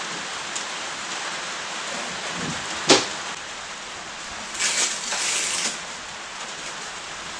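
Steady rain hissing throughout, with one sharp click about three seconds in and a louder rustling, scraping stretch around five seconds in.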